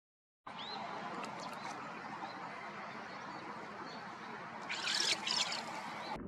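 Steady rush of flowing river water, cutting in about half a second in, with a short rising bird chirp just after and a brief louder burst of noise about five seconds in.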